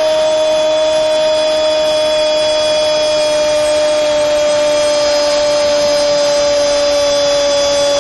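Sportscaster's long held 'Gooool' goal shout in Spanish: one unbroken high note that drifts slowly lower. It sits over a steady noisy background.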